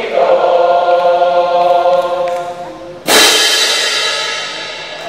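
Symphonic wind band holding a sustained chord that dies away, then, about three seconds in, a sudden loud final chord with a cymbal crash that rings out and fades: the piece's closing bars.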